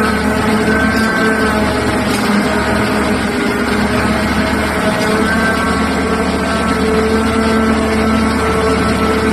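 Liebherr R9800 mining excavator's large diesel engine running steadily: a loud, deep drone with a steady hum above it.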